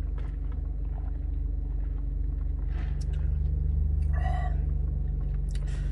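Steady low hum of an idling car, heard inside the cabin, while lemonade is sipped through a straw. A short breathy sound comes about three seconds in, then a brief pleased "ahh" just after four seconds.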